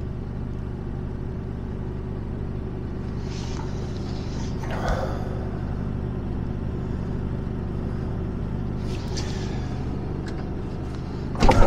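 Mercedes Actros truck's diesel engine idling steadily, heard from inside the cab.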